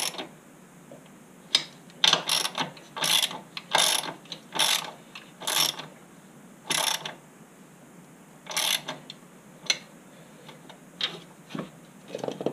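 Socket ratchet wrench clicking in short bursts as it is swung back and forth, tightening a bolt on an ATV plow mount. The bursts follow one another about every half second to a second, with a couple of longer pauses past the middle.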